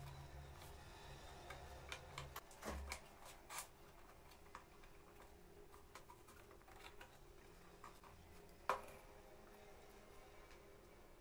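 Light, scattered clicks and taps of small wooden parts knocking against each other as they are handled and fitted onto a wooden model chassis, with one sharper click about three-quarters of the way through. A faint low hum stops about three seconds in.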